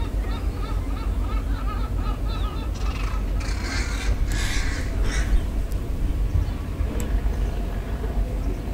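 Gulls calling, a quick series of repeated laughing notes about three a second that stop about two and a half seconds in. A burst of hiss follows between about three and five seconds in, over a steady low rumble.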